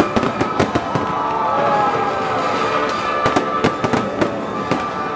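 Aerial fireworks bursting in rapid, irregular succession: a steady run of sharp bangs and crackles, over music playing underneath.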